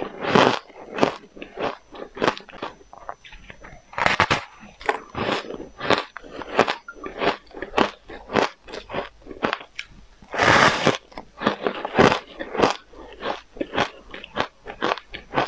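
Powdery frozen ice being bitten and chewed close to a clip-on microphone: a quick, uneven run of crisp crunches, with a few longer, louder crunches.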